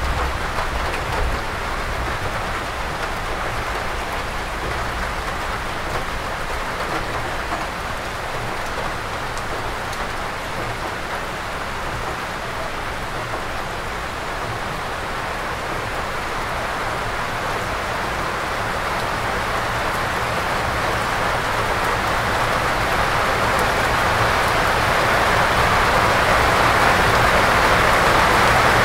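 Heavy rain pouring steadily in an even hiss, growing louder toward the end.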